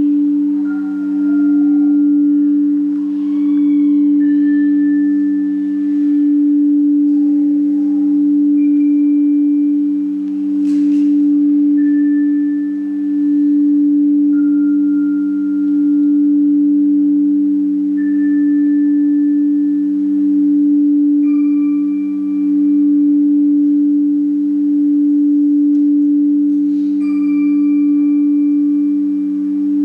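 Ambient drone music: a steady low ringing drone that swells and dips every two to three seconds, with single high pure tones on a few different pitches sounding over it about every three to four seconds, each held for two or three seconds.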